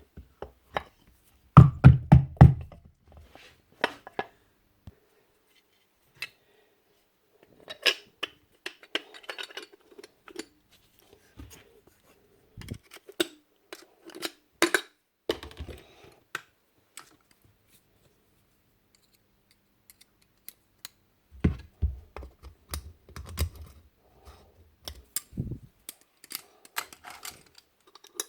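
Small metal parts of a Paslode IM350+ gas nailer being handled and fitted back together by hand: scattered clicks, clinks and knocks in clusters with quiet gaps, with a few heavier thunks about two seconds in and again past the twenty-second mark.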